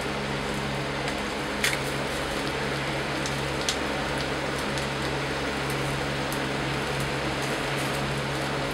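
Skewered eel fillets grilling over charcoal: a steady hiss with a couple of sharp crackles, over a steady low hum.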